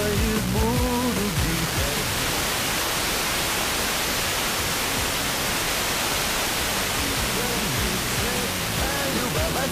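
Sporadic-E FM reception of a distant OIRT-band broadcast, Belarus Pershy Kanal on 72.65 MHz. The programme audio fades out into steady FM hiss about two seconds in as the skip signal weakens, then starts to come back through the static near the end.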